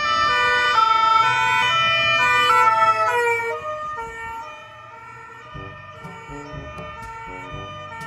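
Ambulance two-tone siren, switching between a high and a low pitch about every half second. It is loud for the first few seconds and then fades as the ambulance moves off, with traffic rumbling underneath.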